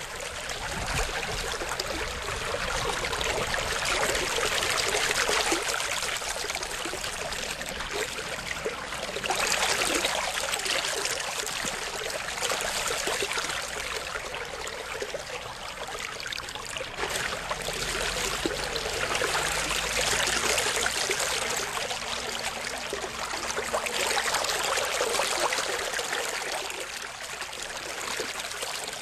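A continuous rushing, running-water sound that swells and fades about every five seconds.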